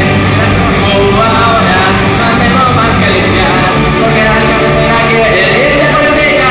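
A live rock band playing: electric guitars, bass guitar and a drum kit, with a man singing lead over them.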